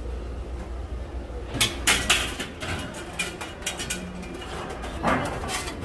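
Sharp metallic clicks and clanks from the latch and hinged steel door of a drum-shaped egg-bread oven being worked open, starting about a second and a half in, over a low steady hum.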